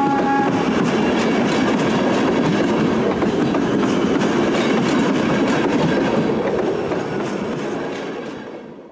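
Passenger train coaches rolling past close by, with loud wheel-and-rail noise. A horn blast dies out about half a second in. The noise fades as the last coaches go by and then cuts off suddenly.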